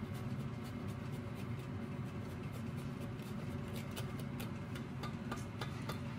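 A block of Parmesan being rubbed on a handheld rasp grater: light, quick scratching strokes, several a second, over a steady low background hum.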